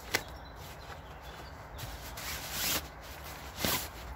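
Nylon fabric rustling and rubbing as a compressed Snugpak sleeping bag is pulled out of its stuff sack. There is a small click at the start, a longer swell of rustling around the middle, and a short scrape near the end.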